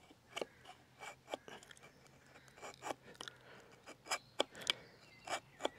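Bushcraft knife carving the outside of a wooden kuksa bowl: a run of short, irregular slicing strokes, roughly two a second, shaving excess wood off.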